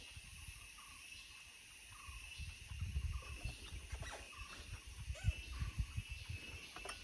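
Quiet outdoor ambience: a low, uneven rumble and a steady high hiss, with faint bird calls repeating in the background and a few light clicks of spoons against bowls and glasses.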